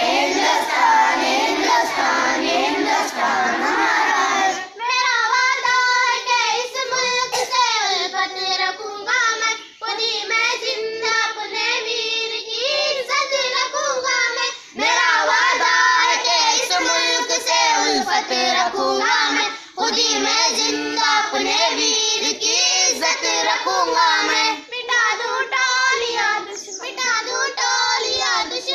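A crowd of children's voices, then from about five seconds in a group of children singing together in unison, in phrases of about five seconds with short breaks between them.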